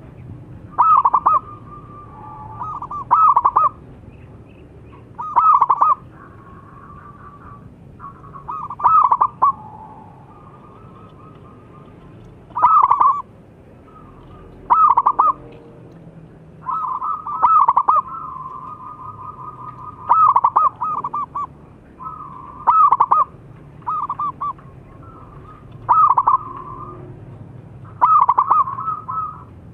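Zebra dove (perkutut) cooing. Loud, short phrases repeat every two to three seconds, with softer rolling trills at the same pitch between them.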